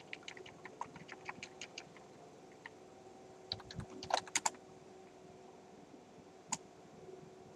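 Computer keyboard typing: a quick run of light keystrokes over the first few seconds, then a few louder clicks about four seconds in and one more near the end, over a faint steady hum.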